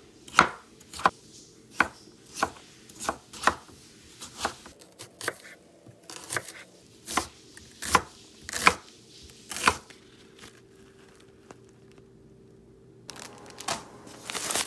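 Chef's knife dicing potato and red onion on a wooden cutting board: steady knife strikes, a little under two a second, that stop about ten seconds in. Near the end, plastic packaging rustles.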